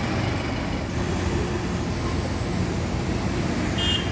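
Steady roadside traffic noise: the low rumble of vehicle engines and tyres on a busy road. A brief high-pitched tone sounds near the end.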